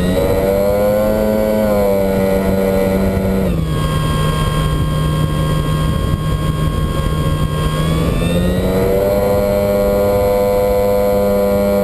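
Small propeller plane's engine running in flight, heard from on board over a rush of wind. The engine pitch rises about half a second in, drops back a little after three seconds, and climbs again near the end as the throttle is opened and eased.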